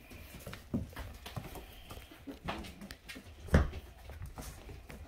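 A litter of young puppies playing: scattered paw scrabbling and small knocks on a fleece mat and tile floor, with faint puppy vocal sounds. A sharp knock about three and a half seconds in is the loudest sound.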